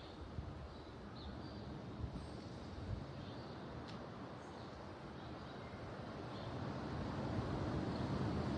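Ocean surf: a steady wash of waves breaking on the shore, swelling louder over the last couple of seconds.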